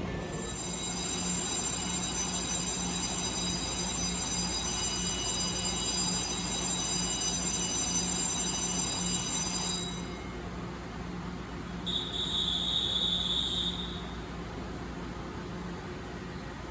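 Electronic tone on a railway platform: a steady high-pitched tone for about ten seconds that cuts off suddenly, then a short beep about two seconds later, over a low steady hum.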